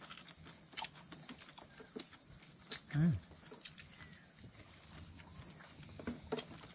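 Insects chirring loudly and steadily in a high, rapidly pulsing drone, with scattered small clicks and a brief low murmur from a person about three seconds in.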